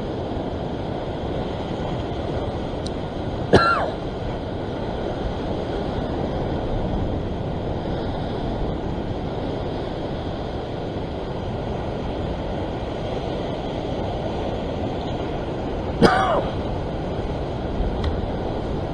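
Steady wash of ocean surf surging against a rock shore. Two brief sharp sounds cut through it, one a few seconds in and one near the end.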